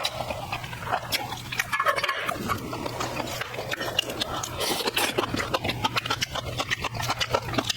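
Close-up eating sounds: a person chewing with wet, smacking mouth noises and many small irregular clicks.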